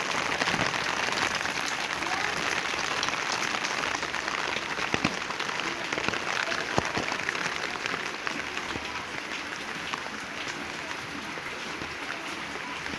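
Steady rain falling on plants, a dense hiss of many small drops with a few sharper single hits about five and seven seconds in. It eases slightly in the later part.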